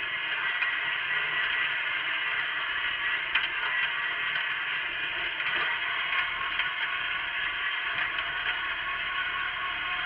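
Wheel Horse garden tractor running steadily under load while pulling a single-furrow mouldboard plough, with the plough frame and hitch rattling and clattering and a couple of sharp knocks.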